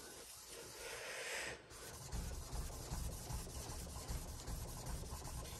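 Back of a Qiangsheng Luban rabbeting block plane blade being rubbed flat on water-lubricated adhesive-backed abrasive paper: a steady rubbing and scraping of steel on grit. It is the flattening stage, working the factory grind marks off until the edge is flat and shiny.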